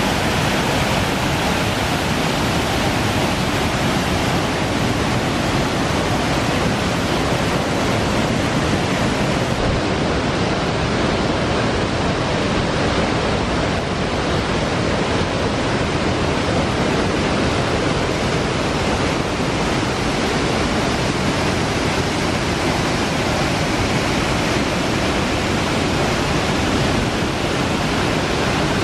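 Victoria Falls: water plunging over the cliff into the gorge, heard as a loud, steady, unbroken rush of noise.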